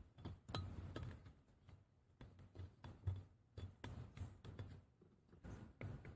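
A metal can being opened by hand: faint, irregular metallic clicks and scrapes, with light handling rustle between them.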